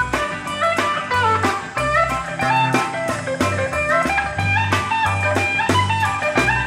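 Instrumental break in a country song: an electric lead guitar picks out a melody line, with some slides, over changing bass notes and a steady drum beat.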